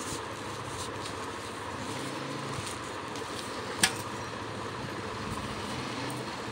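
Handling of a quilted fabric baby bag as a stainless-steel thermos flask is tucked into it, over a steady background hum. One sharp click about four seconds in.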